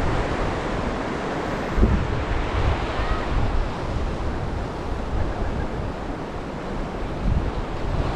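Rushing water and surf with strong wind buffeting a GoPro Hero 9's built-in microphone, a sharp gust thump about two seconds in.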